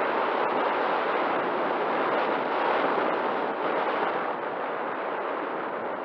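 Steady rush of wind noise from air streaming over the onboard camera of an RC sailplane in gliding flight, with no motor sound.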